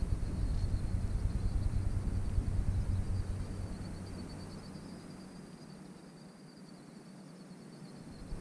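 Wind buffeting the microphone, a low rumble that dies away over the second half, over a faint steady high-pitched hiss.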